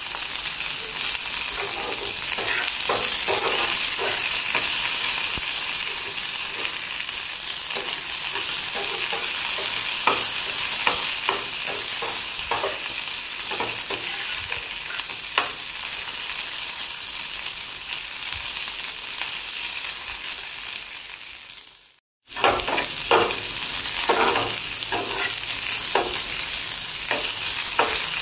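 Cut okra (ladies' finger) sizzling in hot oil in a kadai while a spatula stirs it, scraping and knocking against the pan. A steady sizzle with scattered short scrapes; the sound cuts out briefly about 22 seconds in, then carries on.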